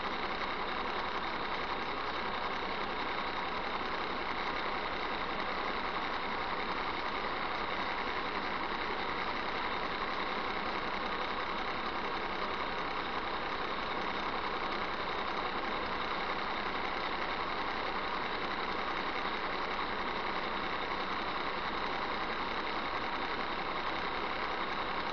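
Steady, unchanging engine and cab noise inside a truck, picked up by a dashcam microphone.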